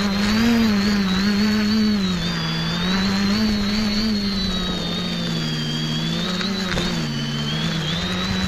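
X550 quadcopter's electric motors and propellers running in flight, heard from a camera on the craft itself: a steady low hum with a high whine over it, the pitch drifting up and down as the throttle changes.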